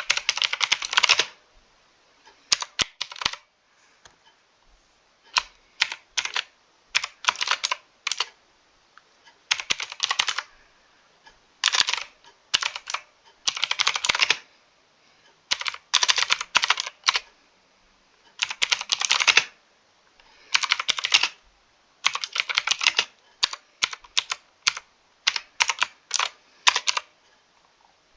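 Mechanical keyboard being typed on in quick runs of clicking keystrokes, each run lasting about a second, broken by short pauses.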